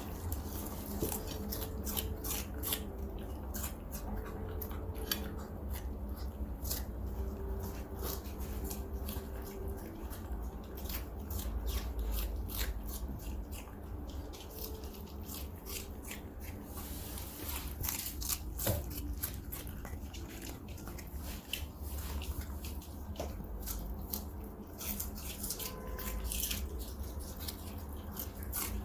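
A small pet crunching cabbage stalk: rapid, irregular crisp bites and chewing over a steady low rumble.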